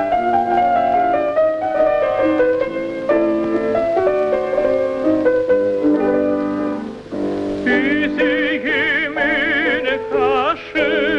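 Background music: sustained instrumental notes, joined about eight seconds in by a high melody line with a wide vibrato.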